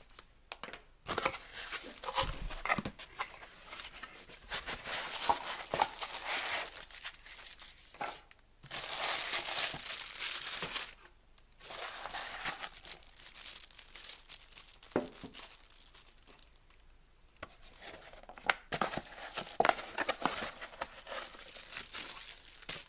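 Packaging being unwrapped by hand: irregular bursts of crinkling and tearing, with a few sharp clicks and knocks in between and short pauses.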